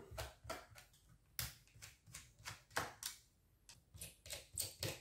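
Scattered light clicks and taps, irregularly spaced, from a precision screwdriver and hands working on a laptop's plastic and metal bottom case while its screws are removed.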